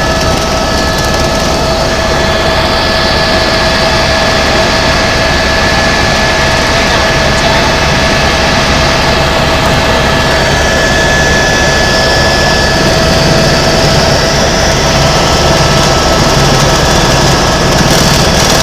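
Tour helicopter's turbine engine and rotor running: a loud, steady drone with a thin high whine over a dense low rumble.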